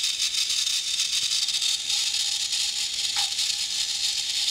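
Clockwork mechanism of a Ricoh Auto Half half-frame film camera whirring steadily after being set off by accident, with a small click about three seconds in; the owner takes it for a self-timer running.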